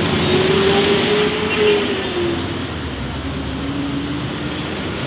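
Highway traffic passing close by. One vehicle goes past with a hum that rises and then drops in pitch as it passes.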